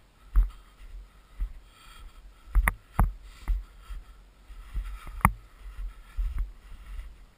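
Footsteps in snow, heard as irregular thumps about one or two a second over a low rumble. The two strongest come about a third of the way in and about two-thirds in.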